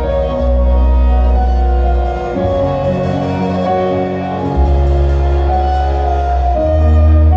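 Live band playing an instrumental passage: a bowed violin carries a melody of held notes over long, deep bass notes and keyboards.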